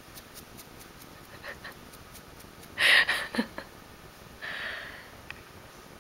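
A dog breathes out in sharp, breathy huffs, loudest about three seconds in with a short falling grunt after it, and a softer huff near five seconds. Before them there is faint, quick, even scratching of fingers in thick fur.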